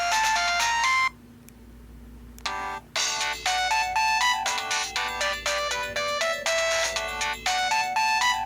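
Pantech C120 mobile phone playing its ringtones, the melodies sounding distorted. One ringtone cuts off about a second in; after a short pause with a brief blip, a new quick melody of bright electronic notes starts about three seconds in.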